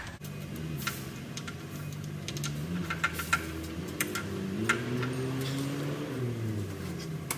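A machine running with a steady hum whose pitch slowly climbs about halfway through and drops back near the end, with scattered sharp clicks and taps on top.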